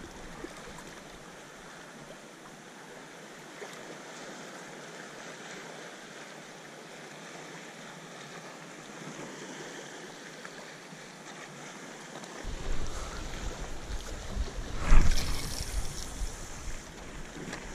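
Small waves lapping against shoreline rocks, a steady hiss of moving water. From about twelve seconds in, wind gusts rumble on the microphone, the strongest about three seconds before the end.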